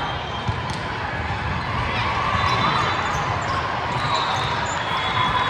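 Busy volleyball gym: a steady din of players and spectators, with volleyballs being hit and bouncing off the hard court and a few sharp knocks.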